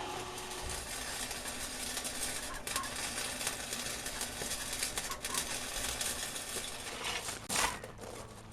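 MIG welder arc crackling and sputtering steadily as a bead is laid, with a sharper burst near the end. The owner blames the welder's wire for not feeding smoothly.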